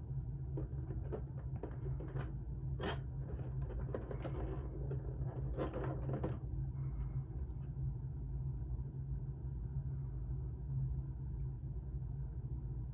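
Packaging being handled, with scattered rustles and clicks, a sharper scrape about three seconds in and a burst of rustling around six seconds. A steady low hum runs underneath, and it is all that is left for the second half.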